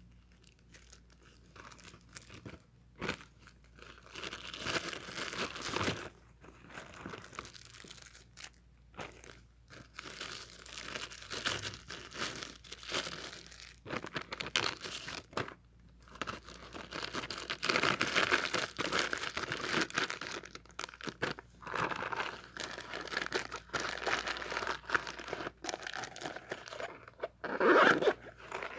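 Plastic wrapping and a plastic bag being handled and crumpled: irregular crinkling and rustling, with a louder crunch near the end.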